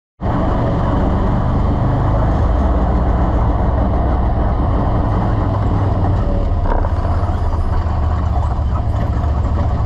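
Off-road vehicle engine running steadily while driving on a gravel road: a loud, even low hum with road and wind noise over it.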